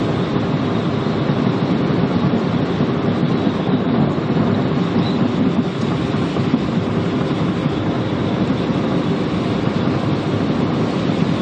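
Steady rumble of a car driving on the road, heard from inside the cabin.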